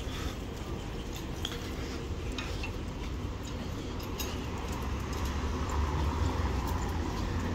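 City street ambience: a steady low rumble with a few scattered light clicks and taps, growing slightly louder near the end.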